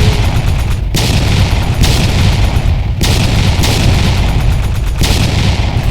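A loud, continuous barrage of fireworks: dense crackling and rumbling booms that run together, shifting abruptly about once a second.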